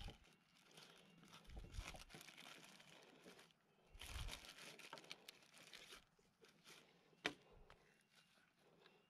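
Faint rustling and crinkling of a thin plastic bag being handled and rummaged through, with a single sharp click about seven seconds in.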